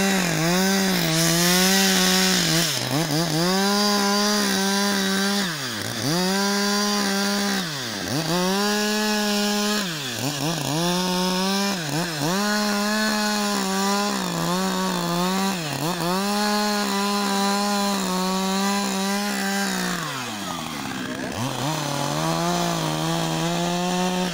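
Husqvarna 562 XP two-stroke chainsaw cutting through pond ice. It runs mostly at full throttle, and the revs drop and climb back again and again as the throttle is eased off and reopened during the cut.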